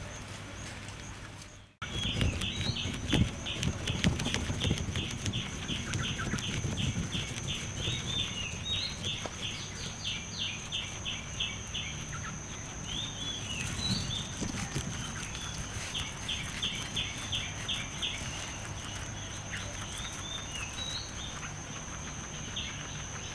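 Guinea pig chewing fresh green grass close to the microphone: steady, irregular crunching and rustling of the blades, with a brief dropout about two seconds in. Behind it runs a steady high insect drone and runs of quick, repeated high chirps at about four a second.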